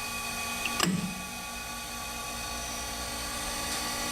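Harig 612 surface grinder running with its grinding spindle on: a steady high whine made of several fixed tones. One short knock comes about a second in.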